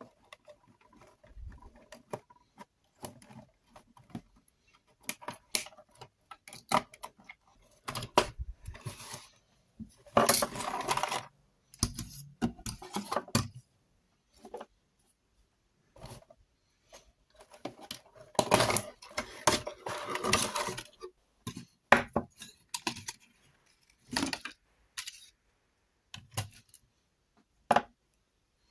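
Cardboard toy packaging being opened and handled: scattered clicks and taps, with longer bouts of scraping and rustling about ten seconds in and again around eighteen to twenty seconds in.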